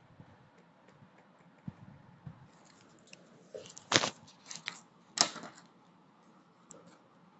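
Paper crinkling and rustling as a homemade paper blind bag and the crumpled tissue paper in it are handled. Mostly faint for the first few seconds, then a flurry of crinkles with two louder ones about four and five seconds in.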